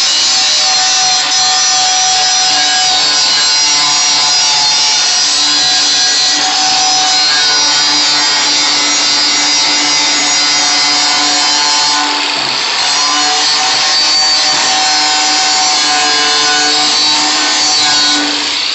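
Electric angle grinder with a grinding wheel running steadily against the steel of a tractor bucket, grinding the paint off down to bare metal to prepare it for welding. The level dips briefly about two-thirds through, then the grinding continues.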